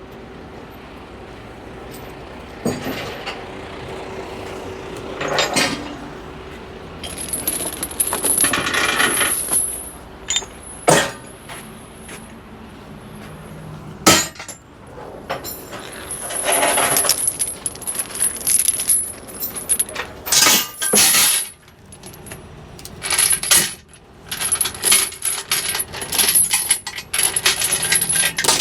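Metal clanking and rattling from heavy-equipment gear, with several sharp knocks and short bursts of high hissing.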